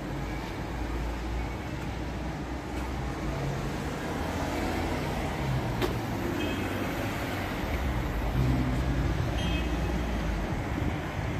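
Street traffic at a city intersection: engines of cars and a bus running and passing, making a steady low rumble.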